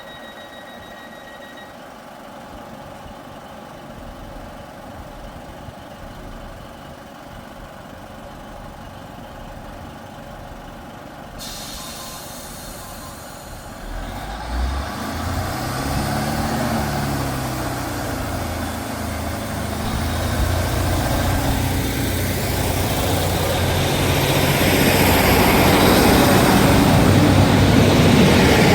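A diesel train approaching along the line. About halfway through, its engine note comes in and wavers in pitch, and a rushing noise from the train builds until the end, where it is loudest. Before that there is only a quieter steady background.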